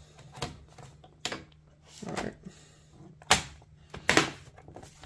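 Plastic bottom cover of a Dell Inspiron 15 5567 laptop being pressed onto the chassis: a series of sharp plastic clicks and snaps as its clips pop into place, the loudest a little past halfway.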